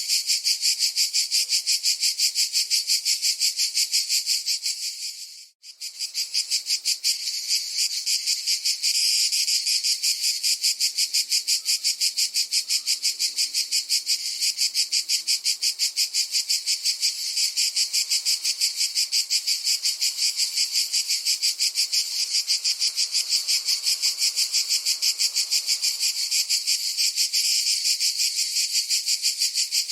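Cicada buzzing in a fast, even pulse, high-pitched and steady, with a brief break about five and a half seconds in.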